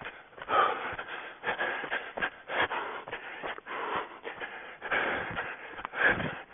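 A runner breathing hard, in irregular surges, with footsteps and rustling through the forest floor.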